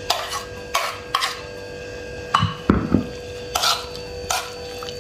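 A metal spoon scraping diced tomatoes off a ceramic plate into a metal bowl of mashed fava beans, then stirring them in. It makes a series of short scrapes and clinks about a second apart, with a couple of dull knocks near the middle.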